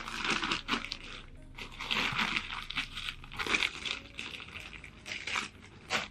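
Crinkling and rustling of a Puff-N-Fluff dog dryer's plastic-like fabric suit as it is pulled on and fastened around a small dog, in irregular handling noises with a few louder crinkles.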